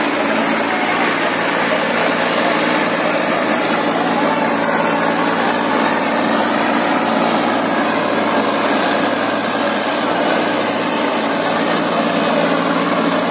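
Deutz-Fahr tractor's diesel engine running steadily under heavy load as it hauls a loaded trolley, hard enough that its front wheels are lifted off the ground.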